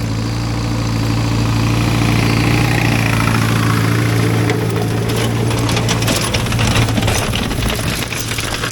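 Tractor engine running steadily. From about halfway through, a rapid clattering and rattling joins it.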